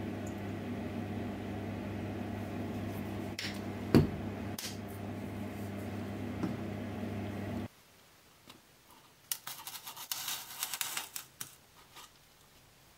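Small electric motor of an airbrush painting setup humming steadily, with one sharp click about four seconds in, then switched off suddenly about eight seconds in. A burst of scratchy, crackling handling noises follows from about nine to eleven seconds, as parts are pressed into a styrofoam block.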